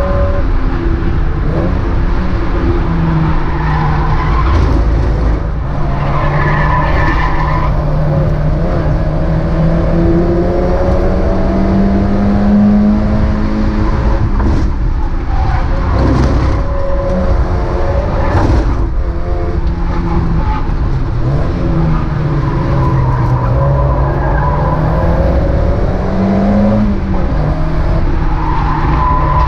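Racing Mazda MX-5's four-cylinder engine at race pace, its pitch climbing and dropping again and again through gear changes and braking, with some tyre squeal.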